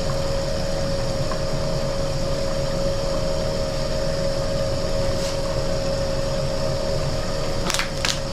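Small electric water pump humming steadily as it drives water through a micro toolbox sluice, with the wash of flowing water. A couple of short clicks near the end.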